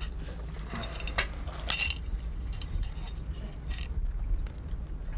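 A few light metallic clinks and knocks from hands working at an aluminium well-head casing, the loudest just under two seconds in, over a steady low rumble.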